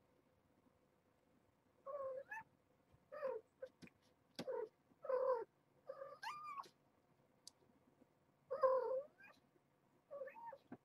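A cat meowing repeatedly: about seven drawn-out calls, each rising and falling in pitch, starting about two seconds in and coming roughly every second or so.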